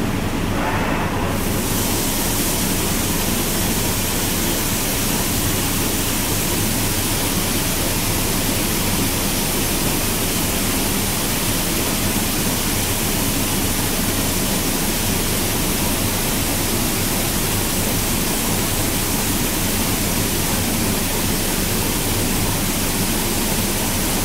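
Robotic paint spray booth running: a steady rushing hiss of air and spray, with a low hum underneath and the high hiss filling in about a second in.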